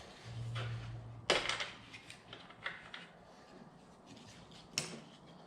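Scattered clicks and knocks of hard parts being handled as the Vario pannier adapter brackets are taken off the motorcycle's rear frame. There is a sharp click about a second in, then smaller ticks, and another sharp click near the end.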